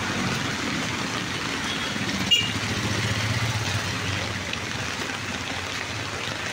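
Street traffic: a motor vehicle's engine running over a steady wash of outdoor noise, its rumble swelling about three seconds in. A single sharp click comes a little over two seconds in.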